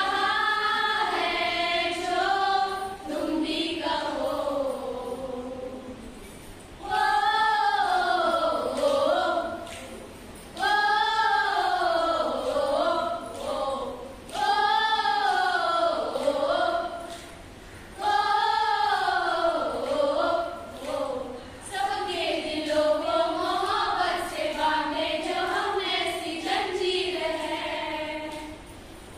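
A group of women singing a patriotic song together in unison, with no instruments heard. The song comes in sung phrases of a few seconds each, with short pauses for breath between them.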